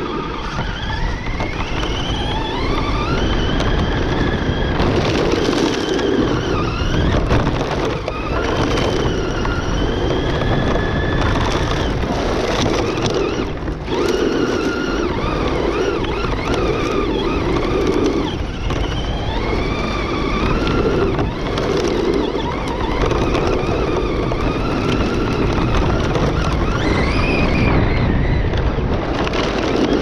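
Traxxas Slash 2WD radio-controlled truck driving over loose gravel, heard from a camera mounted on it. The electric motor and gears whine, rising and falling in pitch again and again with the throttle, over a constant crunch and rumble of the tyres on the gravel.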